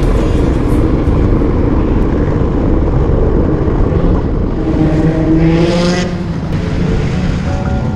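Sport motorcycle engine running hard on a race track. The revs climb about five seconds in, then drop off a second later.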